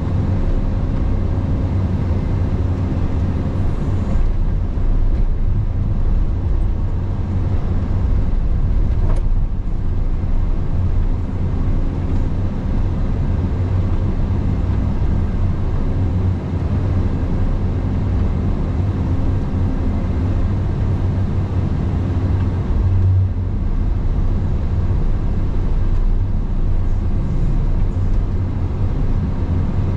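Caterpillar 335 excavator's diesel engine running steadily with a deep hum.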